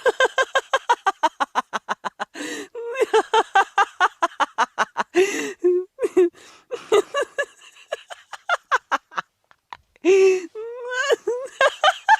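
A person laughing hard in long runs of rapid, high-pitched "ha-ha" pulses, broken by a few sharp gasping breaths.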